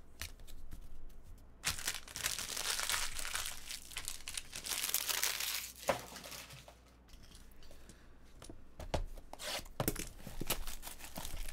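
Trading cards and plastic wrapping being handled. There are a few seconds of crinkling and rustling, then a quieter spell, then several light taps and clicks as a shrink-wrapped card box is picked up and handled.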